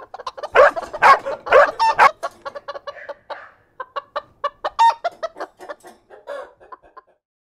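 Domestic chickens clucking in a pen, with a run of several loud calls in the first two seconds, then quieter clucks that thin out toward the end.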